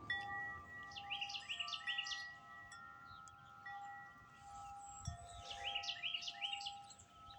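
Grace Note wind chimes ringing in the wind, their tubes sounding long, overlapping, sustained tones. A Carolina wren sings over them twice, a run of quick repeated notes about a second in and again about four and a half seconds in.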